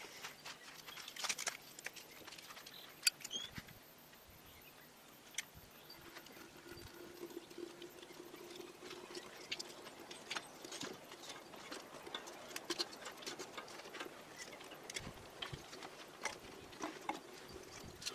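Faint, irregular crackling and clicking from a wood-fired samovar being lit, its kindling catching in the firebox. Now and then a sharper metal click as the samovar's top is handled.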